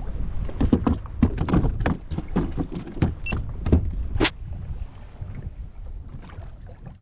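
A quick irregular run of knocks and clicks, thinning out and stopping about four seconds in, over a steady low rumble.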